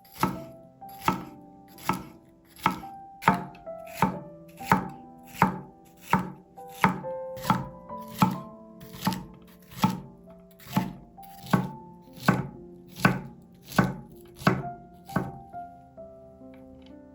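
Knife chopping on a cutting board in a steady rhythm, a little over one stroke a second, stopping near the end. Soft piano music plays underneath.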